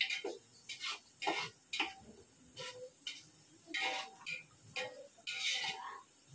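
A metal ladle scraping and knocking against a pot while stirring onions, in short strokes about two a second, some with a brief metallic ring.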